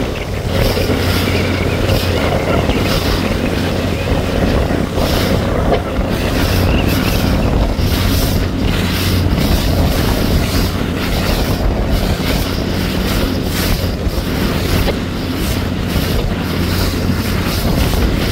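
Wind buffeting the microphone on the water, a continuous fluttering rush over a steady low drone.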